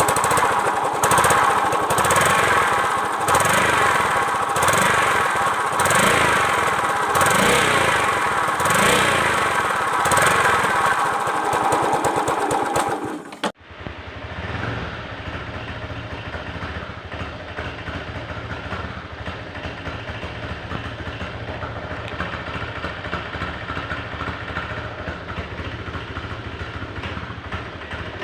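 Motorcycle engine running with a problem noise whose cause is not yet known. For about the first half it runs loud with a regular pulsing about once a second; after a sudden cut it runs more quietly and steadily at idle.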